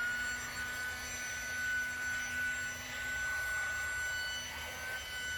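Electric air pump running as it inflates an air mattress: a steady high motor whine over a lower hum.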